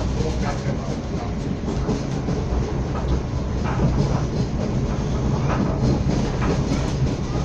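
Srbija Voz passenger train running, heard from on board: a steady low rumble of wheels on rails, with faint clicks from the rail joints.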